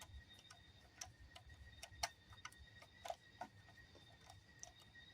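Faint, irregular clicking, a few clicks a second, as 3D-printed plastic parts are screwed together by hand, with a faint steady high whine underneath.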